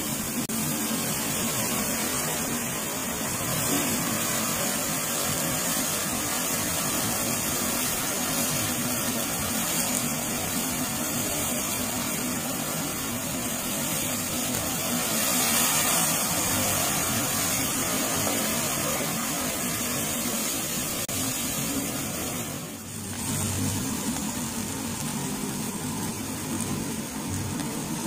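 Steady sizzling hiss from a hot flat-top grill where oil is flaring into flames, dipping briefly near the end.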